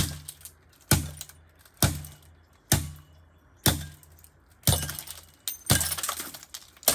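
Old Lasko 3733 box fan being smashed: about eight heavy blows, roughly one a second, each a sharp crack followed by a short low ring that dies away.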